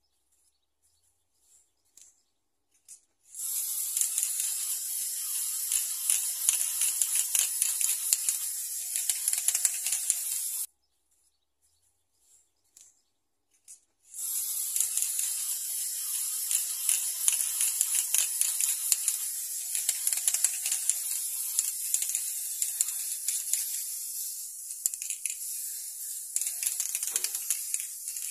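Aerosol spray paint can spraying in two long hisses, one of about seven seconds and one of about fourteen, with a few small clicks before each.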